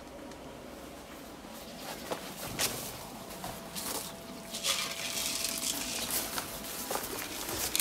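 Footsteps through long grass and rustling, with a few light knocks as the spent airsoft grenade shell is picked up and handled.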